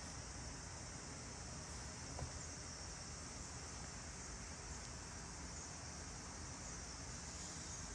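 Steady faint hiss with a low hum underneath: room tone. There is one small click about two seconds in.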